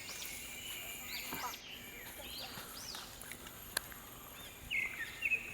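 Wild birds calling in forest undergrowth: a string of short, arching chirps, with a steadier trill near the end.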